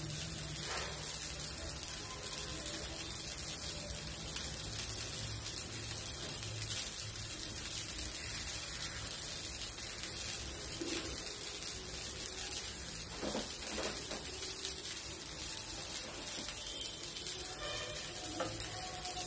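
Dosa batter sizzling steadily on a hot tawa as it crisps and browns, a soft even hiss.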